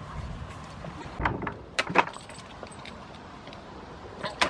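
Chain and padlock rattling and clanking against a wooden gate as goats nose and nibble at it, in a few short clattering bursts about a second in, around two seconds in, and again near the end.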